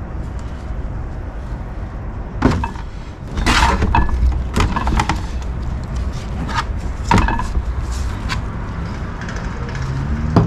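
Metal parts of a 42RE automatic transmission being handled on the bench: about eight sharp knocks and clinks at irregular intervals.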